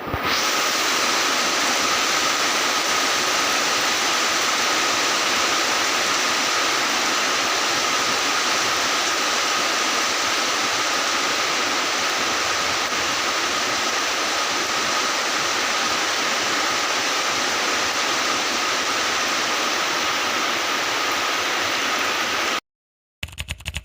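Heavy rain falling steadily as a dense, even hiss, with a thin steady tone running through it. The rain cuts off abruptly about 22 seconds in, and a few sharp clicks follow.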